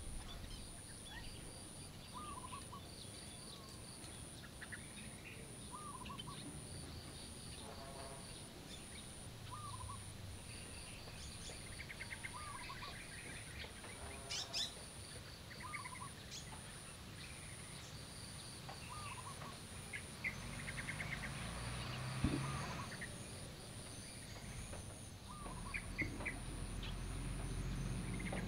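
Birds chirping: one short call repeats about every three seconds among other chirps and trills, over a high tone that pulses evenly about once a second.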